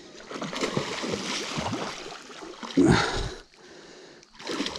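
Water splashing as a hooked king salmon is brought in, with one louder splash about three seconds in.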